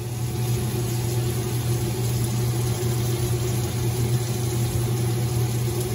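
Butter and chopped vegetables cooking in a pot on a gas stove, with an even hiss over a steady low hum.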